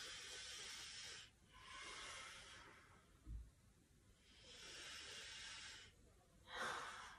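A woman breathing audibly in and out through a series of twisting crunches, her breath timed to the movement: about four soft, airy breaths of a second or so each. A brief low thump about three seconds in.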